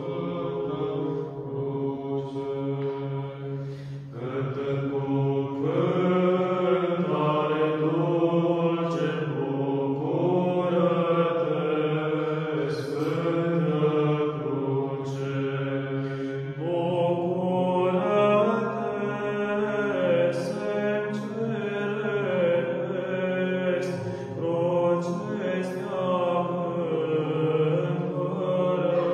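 Small male choir of monastic chanters singing Orthodox Byzantine chant a cappella in Romanian. A low drone (the ison) is held steady beneath a moving melody sung in phrases.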